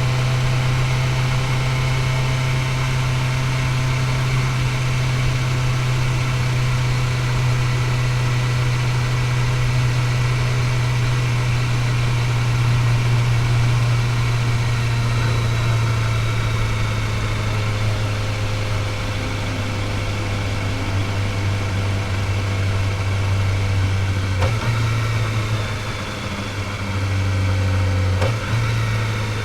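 Kawasaki ZX-4RR's 399 cc inline-four running through the stock exhaust at a steady cruising speed, heard from the rider's seat with wind noise. The engine note eases slightly lower past the middle and changes abruptly twice near the end as the throttle or gear changes.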